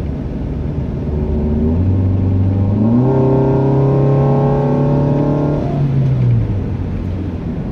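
Car engine with an automatic transmission, heard from inside the cabin as the car accelerates: the revs climb in two steps about two and three seconds in, hold at the higher pitch, then fall back near the end.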